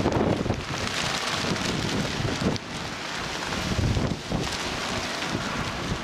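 Strong, gusty wind blowing over the microphone, rushing and buffeting in uneven surges.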